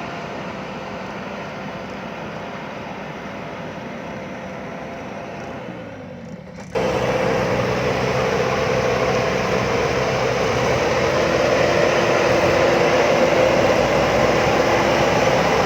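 JCB backhoe loader's diesel engine running steadily. About two-thirds of the way through it jumps suddenly to a much louder, closer sound.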